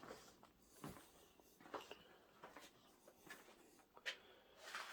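Near silence: quiet room tone with a few faint, scattered soft clicks and rustles.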